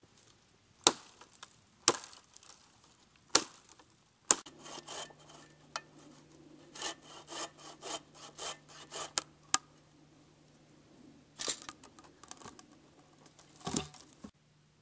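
Dry wood cracking sharply four times. Then a hand bow saw cuts through wood in a run of quick back-and-forth strokes, about three a second, for around five seconds, with a few more scraping strokes near the end.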